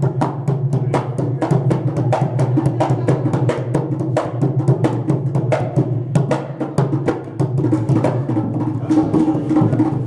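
Puppet-show music: a hand drum beaten in a quick, steady rhythm of about three or four strokes a second over a sustained low tone.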